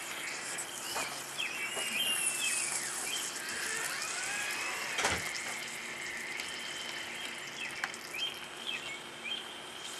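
Birds chirping in short curved calls throughout, over steady background noise, with a few sharp knocks, the clearest about five seconds in.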